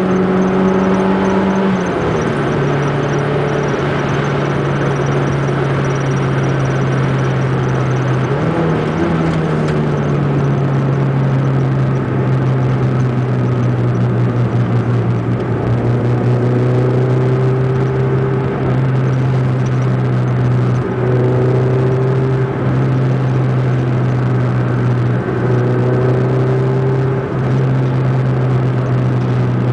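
Ford Zetec four-cylinder engine with a 4-into-1 exhaust header, running loud and steady as the car drives along. Its pitch drops in a step about 2 seconds in and again about 9 seconds in, and holds steady after that apart from a few brief dips.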